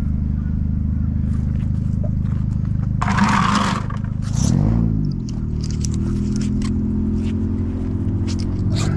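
A motor vehicle engine running steadily, its pitch rising and falling once about halfway through. Over it, a magnet-fishing rope scrapes against a concrete ledge, with scattered short clicks.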